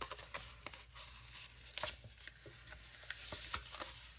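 Sheets of paper stickers and their packaging being handled: light rustling with scattered small clicks and taps, one a little louder near the middle.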